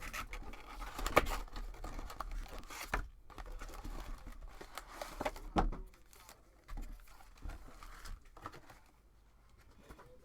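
Wrapping on a hobby box and packs of football trading cards being torn open and crinkled by hand: irregular tearing and rustling, busiest over the first six seconds, then fainter.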